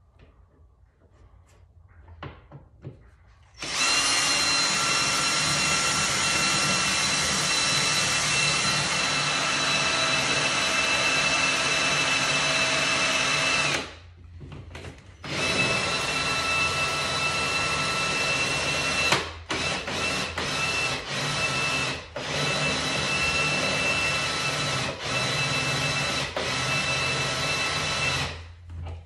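Cordless drill running against the car body's sheet metal, drilling out spot welds. It gives a steady high whine that starts about four seconds in, stops for a second or so around the middle, then runs again with a few short breaks before it stops near the end.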